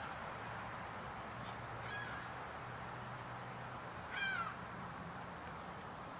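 A bird calling twice, about two seconds in and again about four seconds in, each a short call ending in a downward hook, over a steady low hum.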